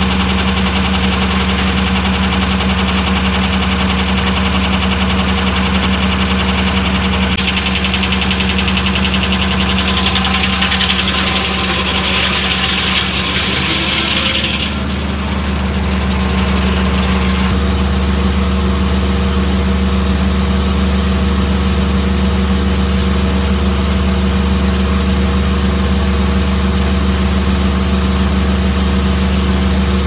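Foley Belsaw M-14 circle sawmill running under engine power: a steady engine drone with a constant low hum. A higher hiss rises over it from about seven seconds in and drops away about fifteen seconds in.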